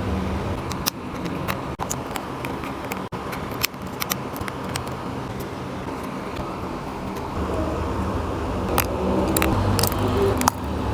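Small sharp clicks and taps of precision tools and loose parts during iPhone disassembly, scattered irregularly over a steady low background hum.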